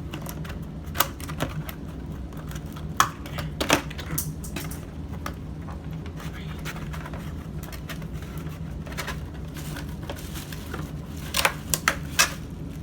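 Cardboard and plastic toy packaging handled as an action figure is taken out of its box: scattered sharp clicks and rustles, a few about a second in, more around three to four seconds, and two near the end, over a steady low hum.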